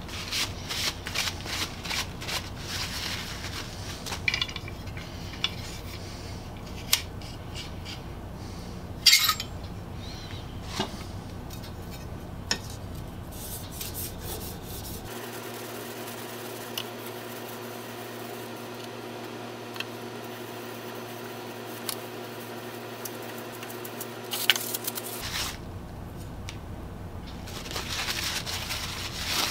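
Steel plane blade being worked on a wet water stone: clusters of quick scraping strokes, with scattered sharp clicks and knocks of metal on the stone, the loudest about a third of the way in.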